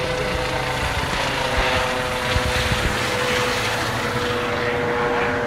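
Helicopter climbing away overhead just after takeoff: steady rotor and turbine noise with a steady high whine.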